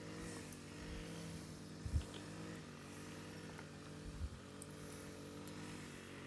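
A faint, steady low hum with several even tones stacked together, the pitch wavering slightly now and then, broken by two soft low thumps, about two and four seconds in.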